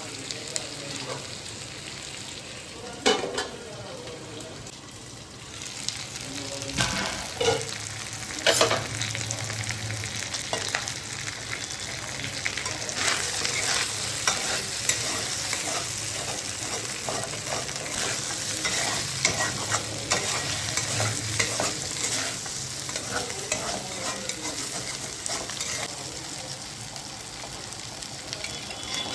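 Chicken frying in a pan for chicken varuval, a dry chicken fry, with a steady sizzle that grows fuller after about six seconds. It is being stirred throughout, with scraping clicks and a few sharp knocks of the utensil on the pan.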